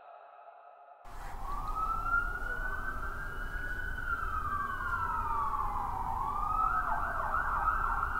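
A siren wailing, starting about a second in: a slow rise and fall in pitch, then a climb into a fast yelp near the end, over a low rumble.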